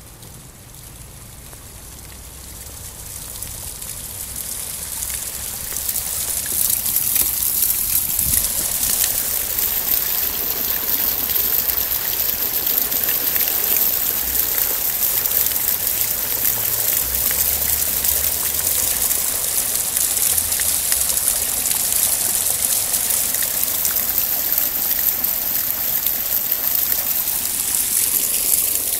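Water splashing and trickling down a small stacked-rock fountain, growing louder over the first six seconds or so as the microphone nears it, then steady, falling away at the very end.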